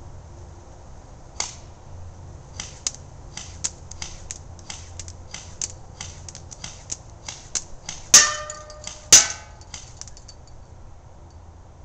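JG M4 airsoft electric gun firing single shots, heard as an irregular string of sharp ticks that includes BBs striking brush. Near the end come two loud, ringing metallic hits about a second apart as BBs strike the aluminium tea can.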